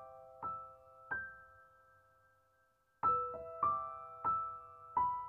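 Background music: soft piano notes struck one at a time, each ringing out and fading, with a brief silent break about halfway through.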